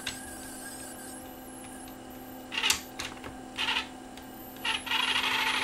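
Small DC load/unload motor of a Panasonic CD player's disc-loading mechanism driving its belt and plastic gear train, run in two short bursts and then for about a second near the end. The whirring comes from gears the owner takes to be noisy and in need of lubrication.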